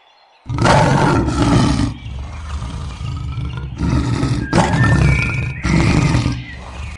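A large animal roaring: a series of rough, growling roars broken by short pauses, starting about half a second in.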